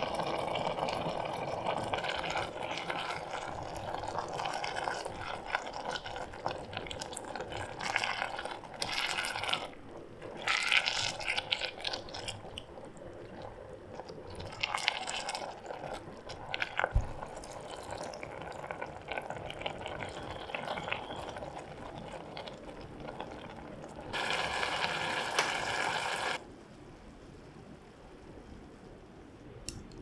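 Shredded chicken cooking wet in a pot: a continuous sizzling, bubbling noise with a spatula stirring through it, louder in a few stretches and dying down near the end.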